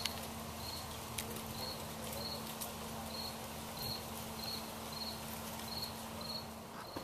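A cricket chirping steadily, short high chirps about twice a second.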